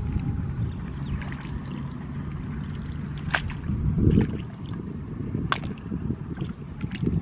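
Shallow water sloshing and splashing as a person wades and gropes by hand among floating plants, loudest a little past halfway and again near the end, over a low steady rumble, with two sharp clicks in between.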